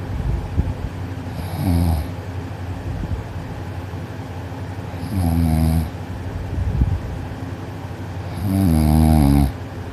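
Teenage boy snoring loudly on his back with his mouth closed: three buzzing snores on the in-breath, about three and a half seconds apart, the last the longest and loudest.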